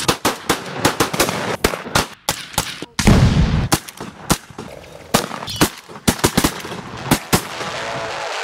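Rapid string of shotgun shots, several a second and overlapping, with a louder, deeper blast about three seconds in.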